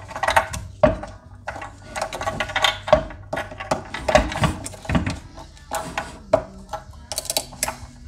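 Plastic connectors and wiring being pried and pulled out of an EV power inverter by gloved hands: a run of irregular plastic clicks, knocks and scrapes. A steady hum sits underneath.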